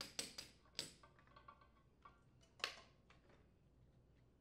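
A few faint, sharp clicks and knocks of metal tools and engine parts being handled on a small engine: four quick ones in the first second and one more about two and a half seconds in.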